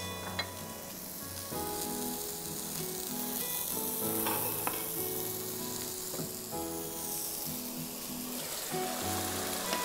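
Food sizzling steadily in a pan on the stove, with soft instrumental background music over it.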